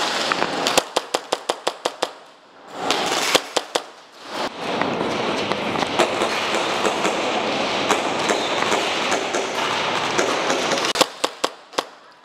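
Airsoft gunfire: quick strings of sharp pops, several a second, near the start, about three seconds in and near the end, with a long, dense rattle of continuous firing in between.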